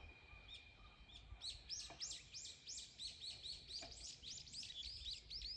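A small bird calling in a rapid run of short, high chirps, about five a second, starting a little over a second in, over a faint low outdoor rumble.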